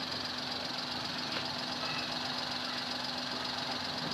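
Suzuki Alto engine idling steadily while it warms up with the cooling system being bled through a funnel in the radiator neck, the thermostat about to open.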